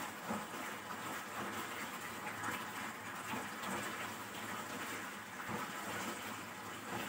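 Sauce sizzling and bubbling in a frying pan as chicken and green onions are stirred with a silicone spatula, a steady sizzle with small soft clicks and scrapes.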